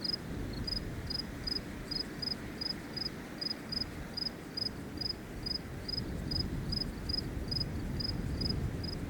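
An insect chirping steadily, with short, high chirps about two to three times a second over a low rumbling noise.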